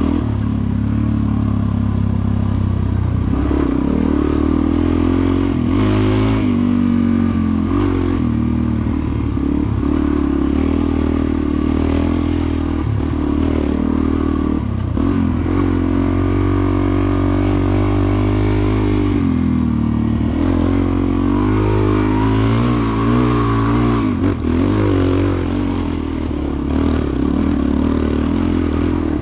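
Suzuki DR-Z400's single-cylinder four-stroke engine being ridden along a dirt trail, its revs rising and falling again and again as the throttle is worked.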